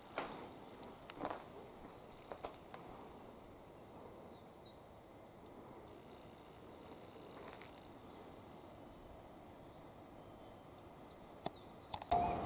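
Summer insects trilling steadily in a high, even band, with a few soft knocks in the first few seconds. A repeating ringing tone starts just before the end.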